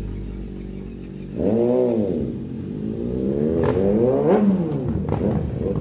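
An engine revving: a short blip about a second and a half in, then a longer climb in revs that peaks and falls back about four and a half seconds in.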